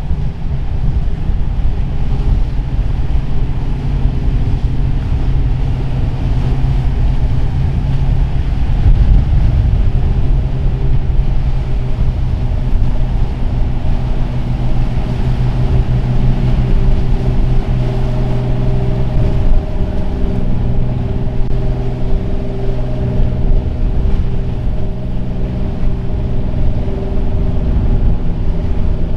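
Express cruiser's engines running steadily as it motors through rough water: a low rumbling drone with a steady hum, shifting slightly about two-thirds of the way through.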